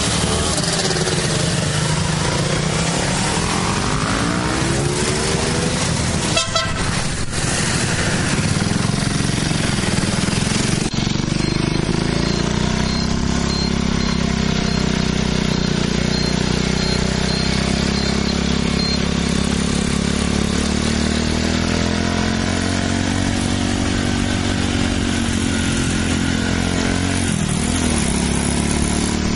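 Honda C90 Cub's four-stroke flat single-cylinder engine running, its pitch rising and falling with the throttle. About eleven seconds in the sound changes abruptly to a steadier drone that slowly rises and falls.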